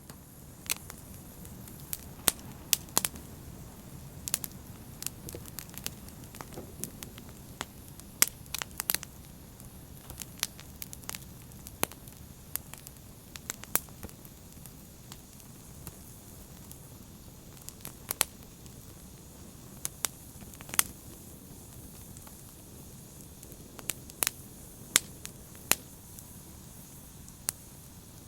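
Open fire burning and crackling: a steady low rustle of flames with irregular sharp pops and snaps, a few a second, some much louder than others.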